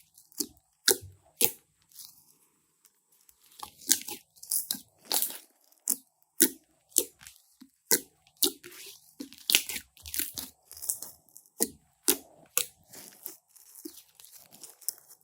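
Fluffy slime being handled, giving irregular sharp crackles and pops about one to two a second, with a short lull about two to three and a half seconds in.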